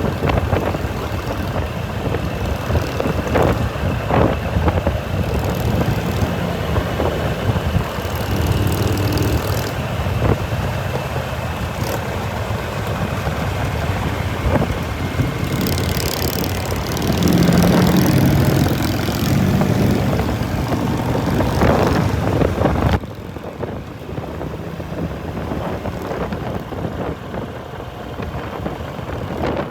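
Motorcycle engine running on the road with wind noise on the microphone. The sound drops abruptly and gets quieter near the end.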